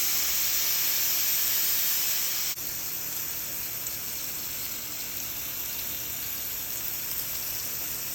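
Ground-beef burger patty sizzling in a hot pan in its own fat: a steady hiss that drops a little, suddenly, about two and a half seconds in.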